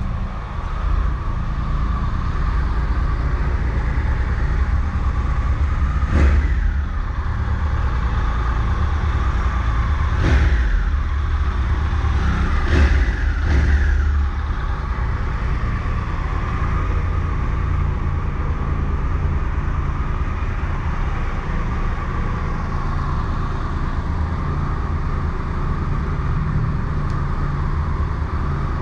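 Triumph Tiger Explorer 1200's three-cylinder engine idling steadily with no alternator knock, its alternator housing and bearings freshly repaired. It is revved briefly four times between about six and fourteen seconds in.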